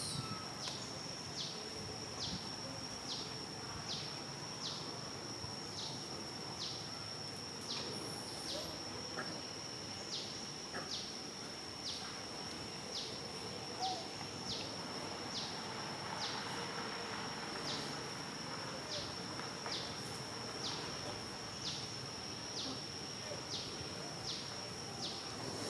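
An insect calling: a steady high-pitched buzz with a short regular pulse about every three-quarters of a second.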